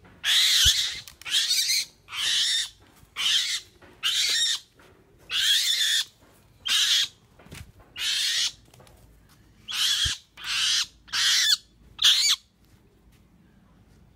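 A young hand-raised white kite giving about a dozen shrill, hoarse screeches, roughly one a second, as it mantles over a rat; they stop about twelve seconds in. The calls are food-guarding: the bird is afraid of having its prey taken.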